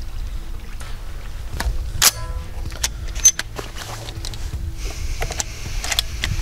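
A few sharp clicks and knocks over a steady low rumble. The loudest comes about two seconds in and rings briefly, and another sharp one follows about a second later.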